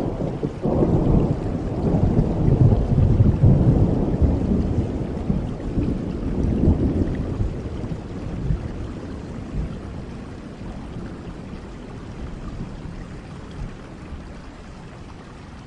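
Steady rain with a long roll of thunder that starts about a second in, is loudest a few seconds later, and slowly dies away, leaving only the rain.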